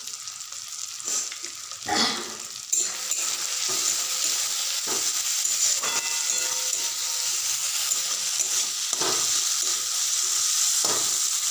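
Chopped tomatoes and onion with freshly added ground cumin, coriander and chilli powder sizzling in hot oil in a metal kadai, stirred and scraped with a spatula. The sizzle swells to a steady loud hiss a few seconds in, with a few separate scrapes of the spatula on the pan.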